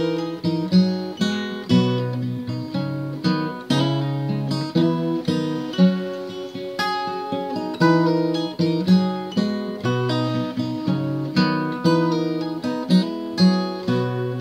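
Solo acoustic guitar music: plucked notes and strummed chords, each note ringing out and fading.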